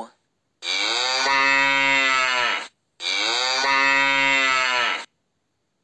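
A cow mooing twice: two long, even moos of about two seconds each, one right after the other.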